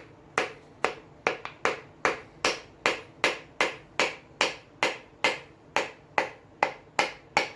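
Light, even hammer taps, about two and a half a second, driving a piston down into a small-block Chevy 350 cylinder bore.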